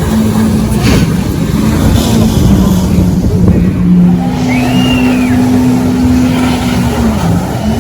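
Loud engine running steadily, its pitch dipping briefly near the end.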